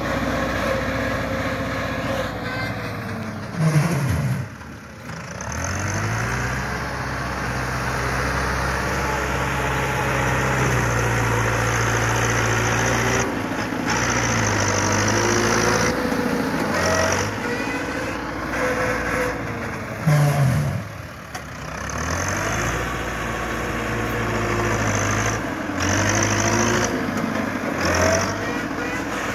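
Massey Ferguson 385 tractor's diesel engine working under load as it pushes sand with a front blade, its speed rising and falling as it pushes and backs off. Twice the engine sound drops away briefly after a short loud burst.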